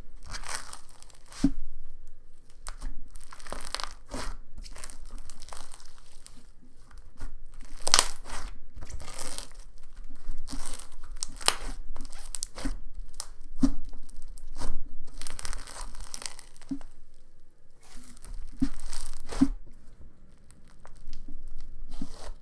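Textured cloud-dough slime full of styrofoam balls being stretched, pulled and squished by hand, giving an irregular fizzy crackling and tearing sound with sharper pops here and there.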